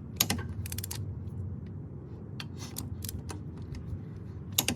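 Sharp metallic clicks and clinks from a torque wrench being worked on a car wheel's lug nuts, tightening them in a star pattern. The clicks are irregular, with the loudest about a fifth of a second in and again near the end.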